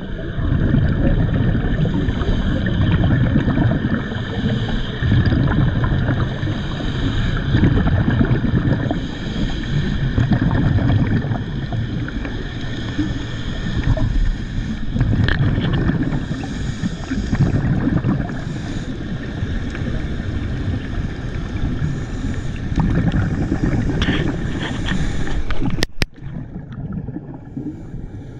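Underwater noise picked up by the camera during a scuba dive: a low, rushing rumble of water and exhaled bubbles that swells and eases every few seconds, with a faint steady hum above it. The sound drops suddenly about two seconds before the end.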